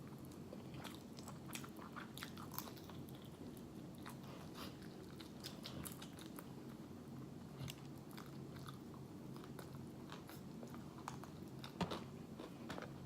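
Faint chewing and biting of fried chicken close to the microphone, with scattered small crunches and mouth clicks over a steady low room hum; one louder click comes near the end.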